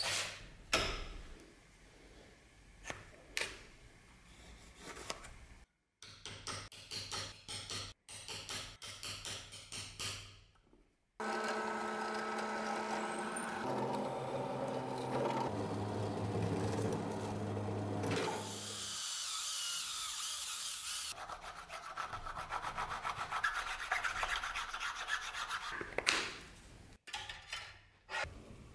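A hand saw cuts through a wooden block in back-and-forth strokes. About a third of the way in, a bench drill press starts running and bores into the wood.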